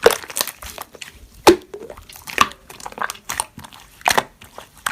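Slime being pressed and worked by hand, making irregular sharp crunchy pops and clicks, several a second.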